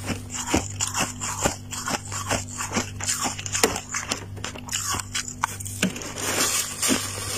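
Close-miked crunching of soft freezer frost being bitten and chewed, a quick run of crisp crunches several times a second over a low steady hum.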